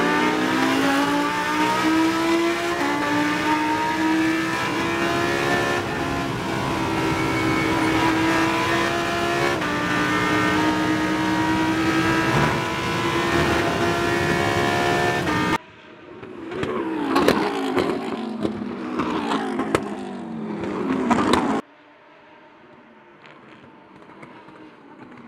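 Onboard sound of a Lamborghini Huracán Super Trofeo's V10 accelerating hard at full throttle, its pitch climbing through each gear and dropping at two upshifts. About fifteen seconds in, the sound cuts to Super Trofeo cars racing past trackside, then drops to a quieter track sound near the end.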